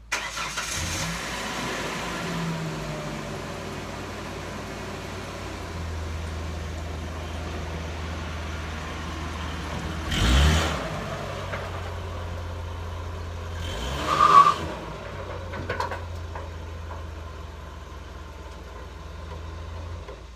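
Pickup truck engine starting and running steadily, with two louder bursts about ten and fourteen seconds in, then shutting off near the end.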